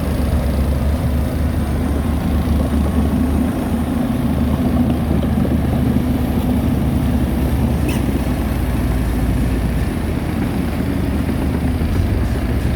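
Heavy diesel engine of earthmoving equipment running steadily with a deep, even drone. A short click sounds about eight seconds in.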